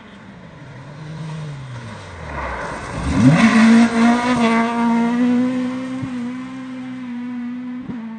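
Volvo 940 rally car engine heard from the roadside. The note drops as the car comes in, then rises sharply about three seconds in and holds at high revs as the car slides sideways through a gravel corner, with a loud spray of gravel at the peak. It then eases off slightly as the car pulls away.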